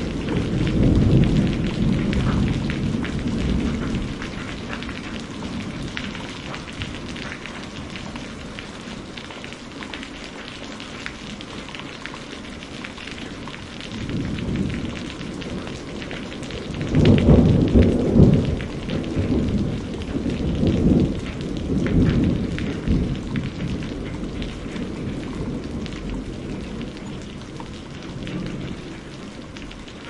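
Thunderstorm: steady, heavy rain, with thunder rumbling and fading away at the start, then a louder roll of thunder about halfway through that rumbles on in waves for several seconds.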